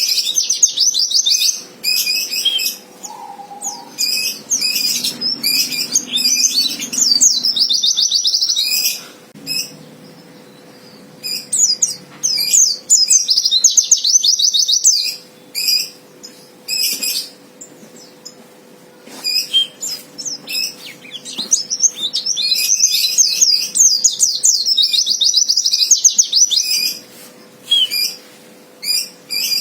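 A white-eye (pleci) singing a fighter's song: runs of fast, high twittering trills a few seconds long, broken by short single chirps.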